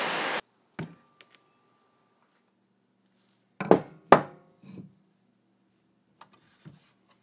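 Background music cuts off abruptly; then a hand-forged steel hammer with a charred wooden handle is set down on a wooden workbench with two sharp knocks about half a second apart. A few faint handling knocks follow near the end.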